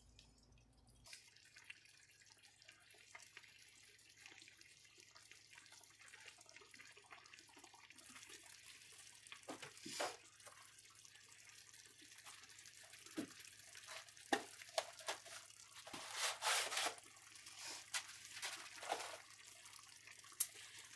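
Tomato sauce simmering in a stainless steel skillet: a faint bubbling hiss with scattered small pops. A few louder handling noises come about three quarters of the way in.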